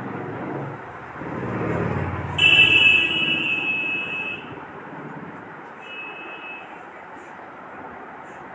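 Palm-fruit fritters (taler bora) sizzling steadily as they deep-fry in hot oil. A low rumble builds about a second in. Then a loud horn sounds for about two seconds, and a shorter, fainter horn follows around six seconds in.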